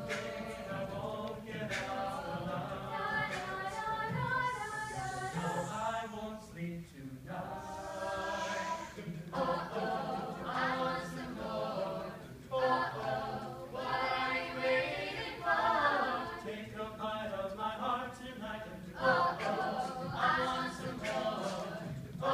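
A mixed-voice a cappella group singing a pop song in harmony, with a beatboxer on a handheld mic adding short percussive clicks and hits.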